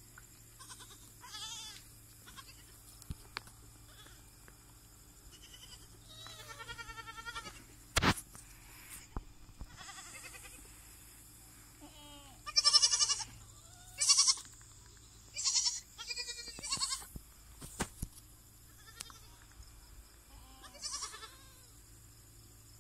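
Goats bleating: a string of separate wavering bleats, the loudest ones bunched in the second half. A single sharp knock about eight seconds in.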